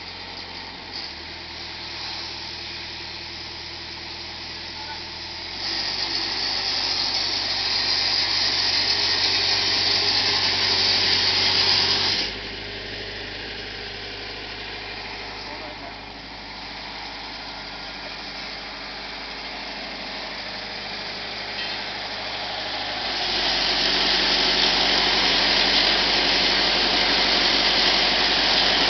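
The 37 hp Kubota engine of a trailer-mounted pressure washer running steadily, with a loud high hiss of water spraying from the hand lance from about six to twelve seconds in. The machine grows louder again for the last few seconds.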